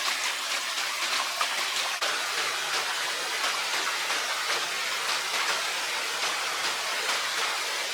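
Running water rushing steadily, a fine even noise with a light patter through it.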